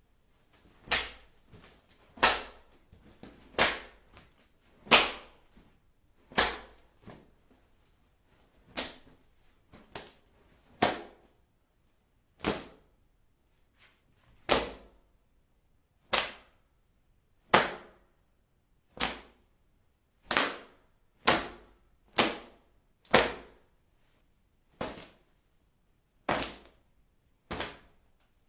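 A series of body-hit sound effects: about twenty sharp, short impacts, one every second or so, varying in loudness, each with a brief tail.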